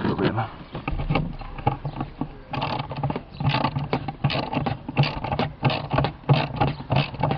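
Socket wrench on a 13 mm socket and extension undoing the battery hold-down bolt: a run of short metallic clicks and rattles, coming about three a second from a couple of seconds in.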